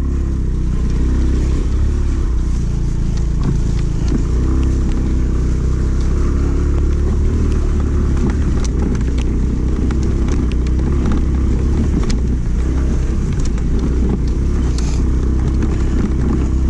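Aprilia Storm scooter's engine running steadily under way, with wind rumbling on the microphone and scattered clicks and rattles as it rides over a rough, muddy dirt track.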